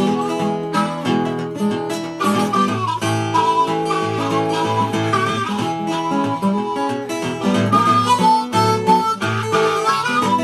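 Background music: acoustic guitar with a harmonica playing a melody of held notes over it.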